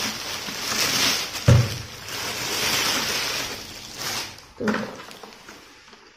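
Clear plastic wrapping crinkling and rustling as it is pulled off a new canister vacuum cleaner, with a thump about one and a half seconds in and a softer knock near the five-second mark. The rustling fades away over the last second or so.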